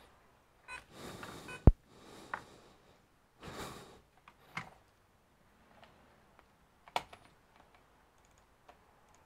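Scattered clicks of a computer mouse and keyboard, with a few short rustles of handling; one sharp click a little under two seconds in is the loudest.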